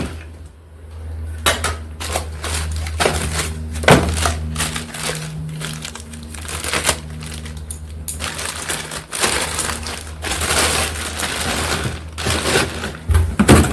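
Plastic packaging crinkling and rustling as a new steel pressure cooker pot is handled and unwrapped, with scattered clicks and a few light knocks, over a steady low hum.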